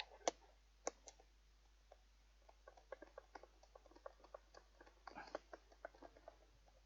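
Faint clicks and light taps of a screwdriver working a screw into a fan heater's casing. A few sharper clicks come in the first second, then a quick run of small clicks.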